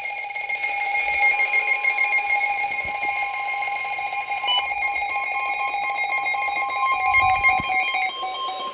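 Emergency Alert System attention signal: two harsh, buzzy tones sounding together, steady and unbroken for about eight seconds, announcing that an emergency warning is about to be read.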